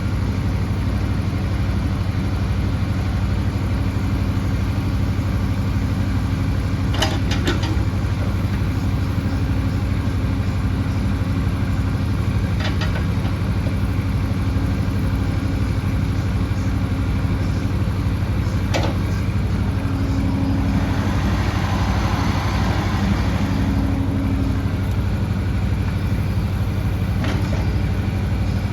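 Bobcat E10Z mini excavator's diesel engine running steadily at idle. A few sharp clanks come through at intervals, and a hiss lasting a few seconds comes about two-thirds of the way in.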